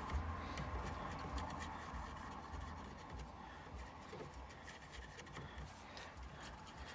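Faint rubbing and light scratching with a few small scattered clicks, over a low steady rumble.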